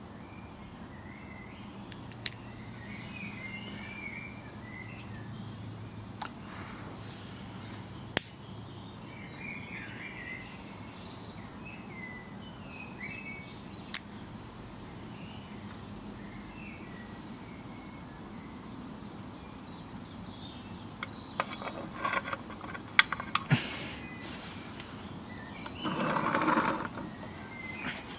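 Outdoor ambience with small birds chirping, broken by a few sharp single clicks. Near the end comes a cluster of clicks and knocks and a brief louder rushing noise.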